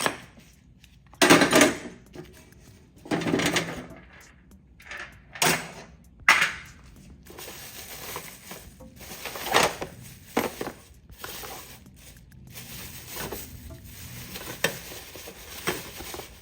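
Old metal hand tools and hardware clinking and rattling against each other as they are rummaged through and lifted out of an old toolbox, in irregular clanks, some loud and some soft.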